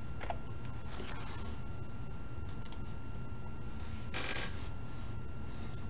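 Room tone from a lecture recording: a steady low hum and faint hiss, with a few faint clicks and a brief hissy burst about four seconds in.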